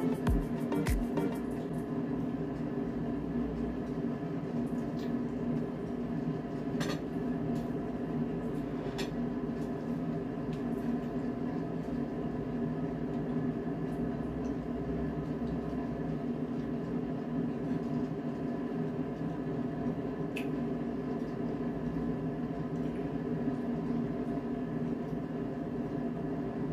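Steady machine hum that does not change, with a few faint clicks. The last beats of background music end about a second in.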